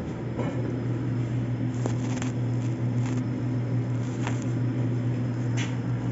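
A steady low mechanical hum, with a few light clicks and taps scattered through it.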